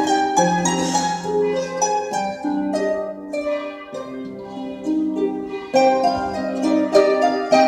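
An ensemble of harps playing together, several plucked notes ringing over one another in a flowing melody. The playing thins out briefly in the middle, then fuller chords come back in about six seconds in.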